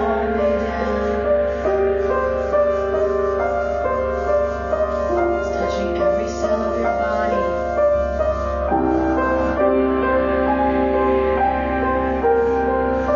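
Slow live meditation music: a didgeridoo's steady low drone under held notes that shift in pitch every second or so.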